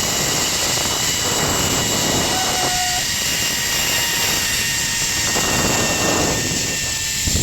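Rushing wind on a body-worn camera microphone during a zipline descent, over a steady whine from the trolley's pulleys running along the cable. There is a short thump near the end.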